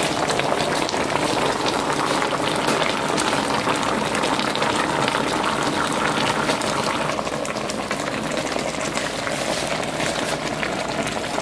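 Pork shoulder and vegetables in gravy and melting butter bubbling at a steady simmer in a black enamel roasting pan on a stovetop burner, a dense patter of small pops and crackles.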